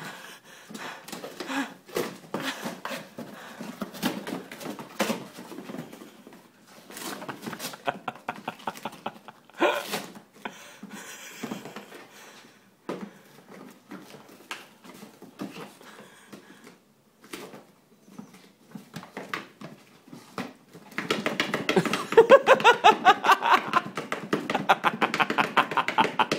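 A dachshund attacking a taped cardboard box: cardboard scraping, tearing and knocking on the floor in a string of short knocks and scrapes. Near the end, a louder stretch of rapid growling joins in.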